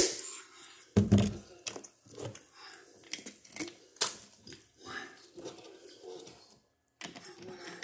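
Close-up eating and drinking noises from a person at the microphone. A sharp click comes first, then a heavy thump about a second in, then irregular mouth smacks, clicks and rustling.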